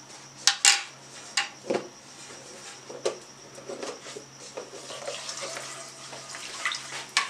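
Utensils clicking against a nonstick karahi a few times, then a silicone spatula stirring cardamom powder through hot ghee with soft scraping and clicking.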